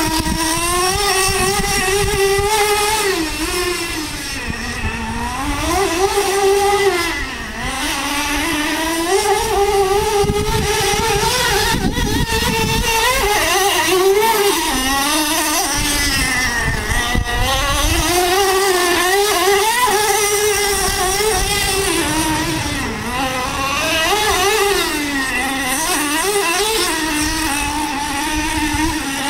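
Traxxas Slayer Pro 4x4's TRX 3.3 nitro engine running hard around a track, its high buzzing note rising and falling over and over as the throttle opens on the straights and closes into the corners.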